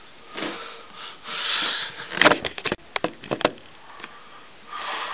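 Rustling and breathy hissing handling noise, with a quick run of small sharp clicks and knocks in the middle, then more rustling near the end.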